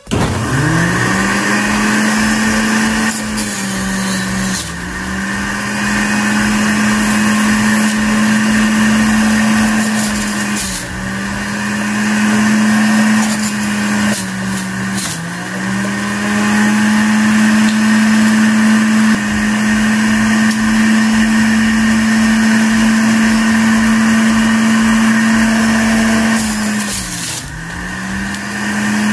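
Electric centrifugal juicer motor spinning up and running with a steady whine while celery and apples are juiced. Its pitch sags briefly several times as the motor is loaded by produce going down the chute, then recovers.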